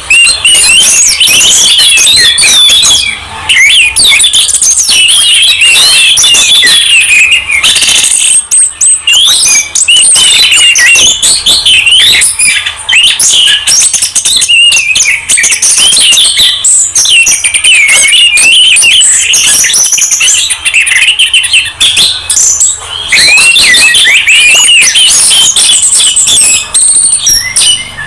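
Songbirds singing without pause: fast, varied chirps, whistles and trills that overlap one another, from a mixed masteran recording of orange-headed thrush, white-eye and greater green leafbird song.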